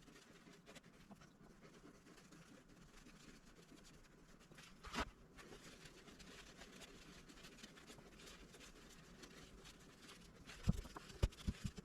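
Faint rubbing of a rag wiping lapping paste off scope rings on a rifle, with one sharp knock about five seconds in and a quick run of light knocks near the end.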